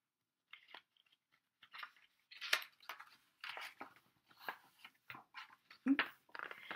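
Hardcover picture book being opened and its pages flipped and handled: a run of irregular papery crackles, rustles and soft taps, starting about half a second in.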